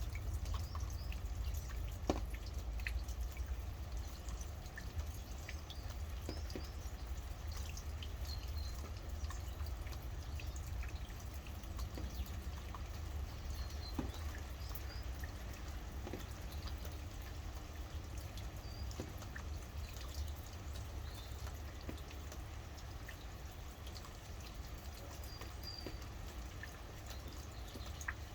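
Steady rain with many scattered drips ticking, over a low rumble, and faint short bird chirps now and then.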